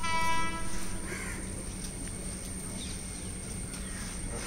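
A train horn sounds one steady note for under a second at the start, then a crow caws about a second in.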